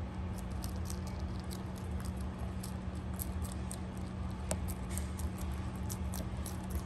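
Rabbit chewing romaine lettuce close up: a quick run of small crisp crunches, several a second, over a steady low hum.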